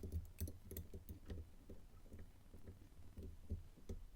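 Faint, irregular small clicks and taps of a lock pick working the pins of a Meroni ME3388 tubular lock core held under tension, as pins are pushed to set one by one.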